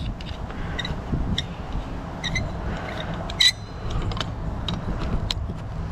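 Hand tools clicking and clinking against metal while working a stuck carburetor part loose: scattered light metallic ticks, with a sharper ringing clink about three and a half seconds in.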